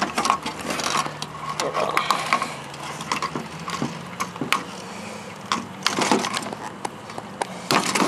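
Diagonal wire cutters snipping through the wiring of an old stereo receiver: irregular sharp snips and clicks, with the wire bundles rustling as they are pulled. A low steady hum runs underneath.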